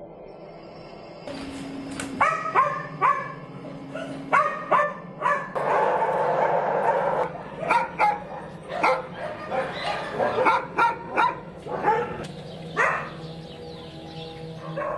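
Kennelled dogs barking, starting about a second in: many short barks in quick succession, several dogs overlapping into a dense chorus about six seconds in, over a low steady drone.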